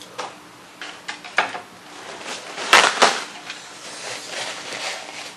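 A paper towel crumpled and rubbed between the hands while they are wiped clean. A few light clicks and knocks come first, then a loud rustling swish about halfway through, then softer rustling.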